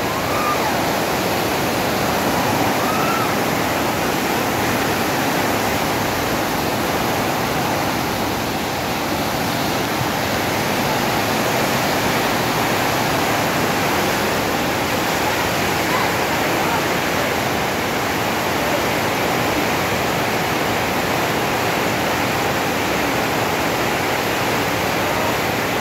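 Steady, loud rushing of a muddy flash-flood torrent in full spate, a dense unbroken wash of water noise.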